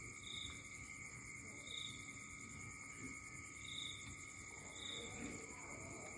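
Night insects trilling steadily and faintly, with a short high chirp repeating every second or two over a low rustle.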